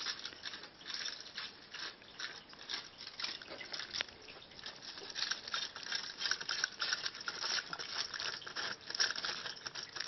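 Aluminium foil crinkling and crackling under cats eating and licking leftover roast vegetables off it: irregular small crackles, busier in the second half.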